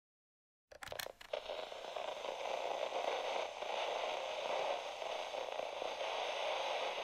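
Radio-style static sound effect: a few sharp crackles just under a second in, then a steady hiss of static.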